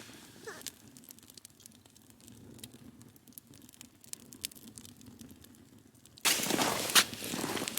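Faint, scattered clicks and small crackles, then about six seconds in a sudden loud rushing noise.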